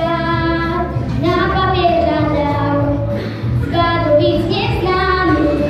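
A girl singing into a microphone, holding long notes and gliding between pitches, over a steady musical backing.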